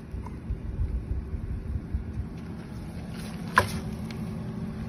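Low, uneven rumble of wind on the phone's microphone, with one sharp knock about three and a half seconds in.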